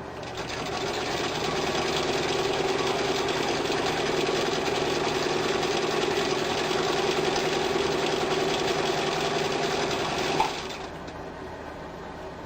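1948 Singer Model 66-16 sewing machine with its belt-driven BR electric motor, stitching a straight line through thin fabric. It speeds up over the first second or two and runs steadily at speed. It stops about ten and a half seconds in with a small click.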